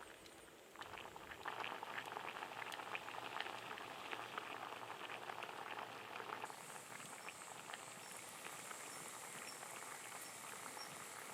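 Shabu-shabu broth bubbling at a boil in a pot, a steady dense patter of small pops that starts about a second in.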